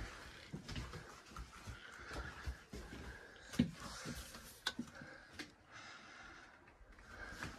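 Footsteps on a floor and handling knocks from a hand-held camera being walked through small rooms, with breathing close to the microphone.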